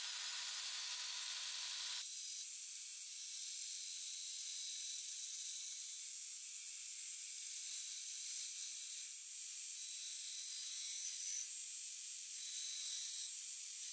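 A 2x72 belt grinder grinding the bevel into a steel blade, heard as a steady high hiss with no low end, which steps up a little in level and pitch about two seconds in.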